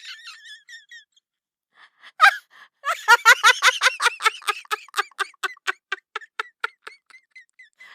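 High-pitched cackling laughter: a long run of quick cackles, about five a second, that fades out over several seconds after a short opening cry.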